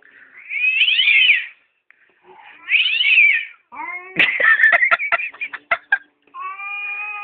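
Cat caterwauling as in a fight: two long yowls that rise and fall in pitch, then a harsh screeching stretch broken by sharp clicks about four seconds in, then a long, steady, lower yowl near the end.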